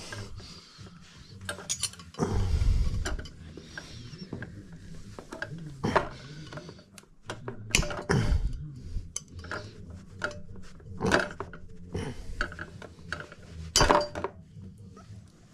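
Metal tools clinking, scraping and knocking on bicycle fork and headset parts while a stuck part is worked loose. The clicks and knocks are irregular, with a heavier low knock a couple of seconds in.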